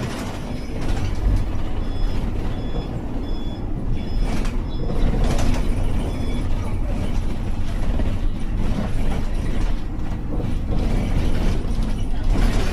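The 科技之星 快捷6號 running with a steady low rumble and continuous mechanical rattling and clattering, with a few short high squeaks in the first few seconds. This is the abnormal noise that comes with its severe shaking.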